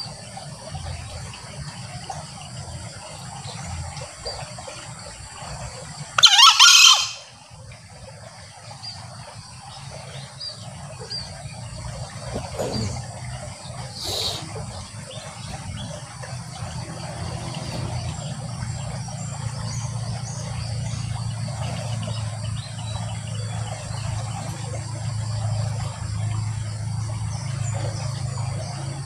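Male green junglefowl giving one short, shrill crow about six seconds in, with a fainter brief high call some eight seconds later. A steady high insect drone runs underneath.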